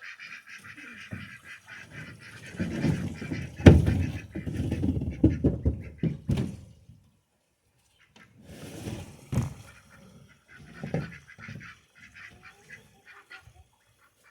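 Domestic waterfowl calling at first. Then close handling noise takes over: rustling and knocks, with one sharp knock about four seconds in, then more knocking and rustling after a brief pause.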